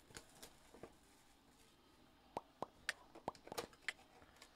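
Cardboard Panini Crown Royale hobby box being handled and opened by hand: a few faint clicks, then from about halfway in a quick run of small clicks and pops.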